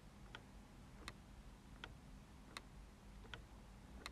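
Faint mechanical clock ticking: an even tick-tock of sharp clicks about every three-quarters of a second, with every other click stronger.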